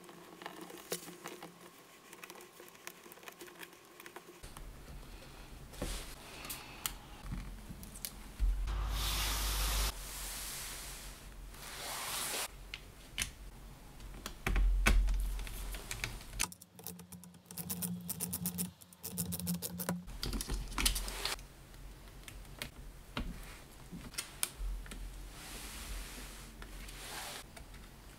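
Close-up small clicks, taps and scrapes of hands working on a laptop's insides: plastic parts, ribbon-cable connectors, a memory card being seated and a small screwdriver on tiny screws. A couple of louder, noisier scraping stretches come partway through.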